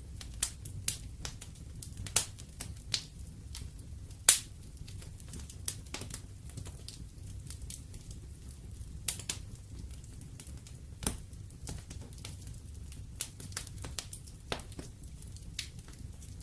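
Wood fire crackling: irregular sharp pops and cracks, one loudest about four seconds in, over a low steady rumble.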